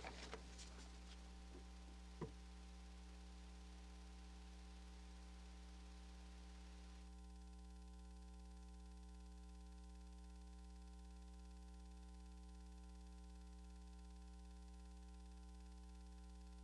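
Near silence with a steady electrical mains hum, and one faint click about two seconds in.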